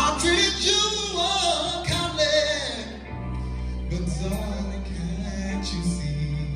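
Teenage male singer singing a soul ballad into a handheld microphone over sustained instrumental accompaniment. His voice bends through a long wavering run for the first three seconds, then drops back to softer phrases.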